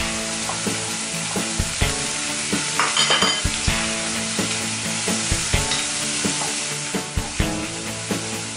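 Chopped prawns and pork belly sizzling in a hot frying pan while a wooden spatula stirs them, with repeated scrapes and taps of the spatula against the pan.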